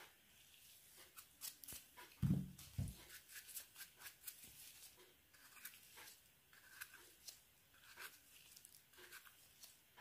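Leaf litter and twigs crackling and snapping in irregular sharp clicks, two or three a second, with a heavy low thump about two seconds in.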